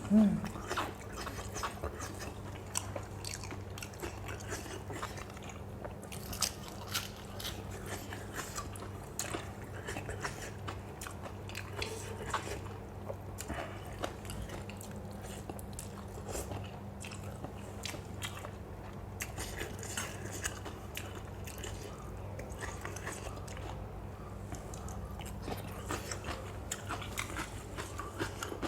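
A person chewing and crunching crisp food, a spicy lotus-stem salad with fresh shrimp, in many short crackly bites, with a steady low hum underneath. There is a louder knock right at the start.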